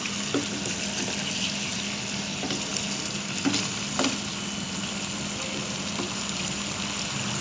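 Chicken with ginger frying in a pan: a steady sizzle, with a few sharp clicks, the loudest about three and a half and four seconds in, over a low steady hum.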